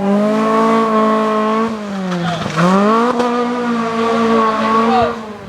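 Rally car engine held at high revs. About two seconds in the revs drop and sweep back up, then it holds high again before fading away near the end.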